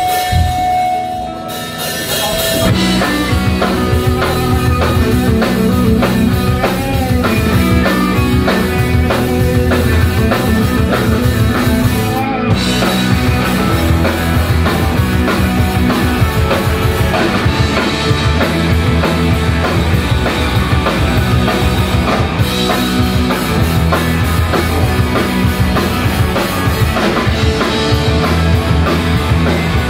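Rock band playing live on electric guitars and a drum kit. A few guitar notes open it, and the full band comes in about two and a half seconds in.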